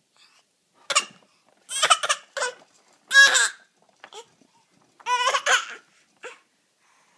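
A person fake coughing: a string of about six short, high-pitched forced coughs with brief gaps between them.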